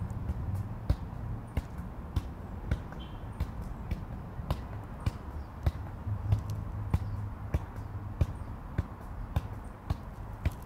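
Soccer ball being juggled: evenly paced taps of foot and thigh on the ball, about one and a half a second, over a steady low rumble.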